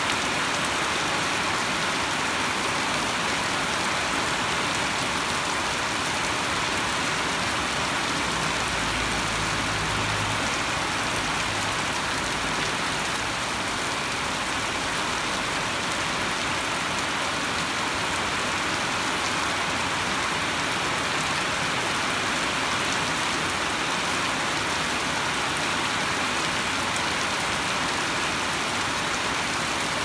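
Heavy rain falling steadily in a constant hiss, with a brief low rumble around the middle.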